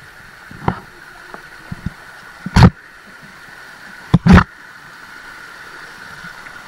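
Two short, loud thumps, about two and a half and four seconds in, over a steady background hiss.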